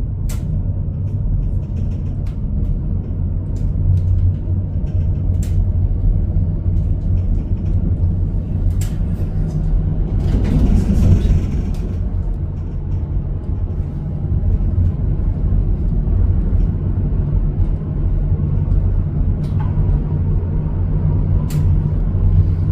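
Steady low rumble of a moving passenger vehicle, with scattered clicks and knocks, a brief hissing rush about halfway through, and a faint steady tone coming in near the end.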